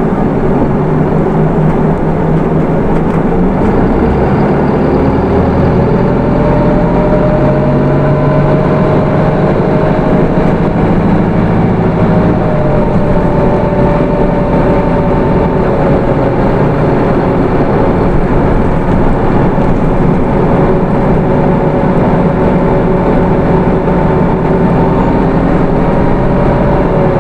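Hino Rainbow II bus with its 4HK1 four-cylinder diesel, driving along steadily: engine and road noise with a whine that drifts slowly in pitch.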